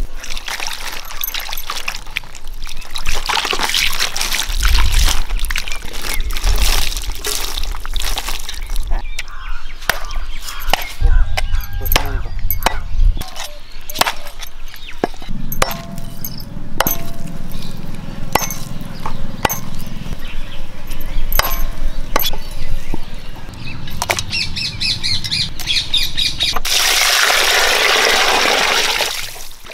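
Water poured over a whole country chicken, then a cleaver chopping it on a wooden block in a long run of sharp, irregular chops. Near the end, water is poured steadily into a steel pot of chicken pieces.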